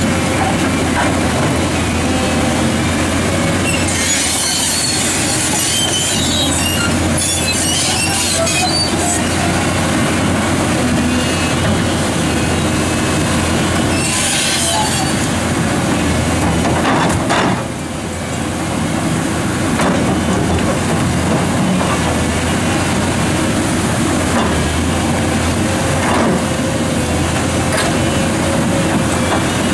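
New Holland E385 crawler excavator working in a rocky riverbed: its diesel engine and hydraulics run steadily under load. Bouts of high squealing and scraping come about four to nine seconds in and again around fourteen seconds, while the bucket grips and moves boulders, and there is a sharp knock a little after halfway.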